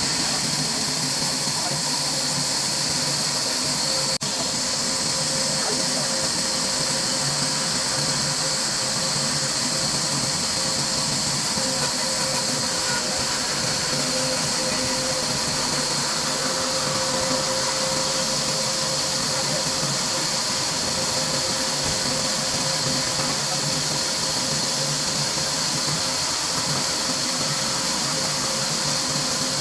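Steady machine hiss with a faint constant hum underneath, unchanging throughout, and a single brief click about four seconds in.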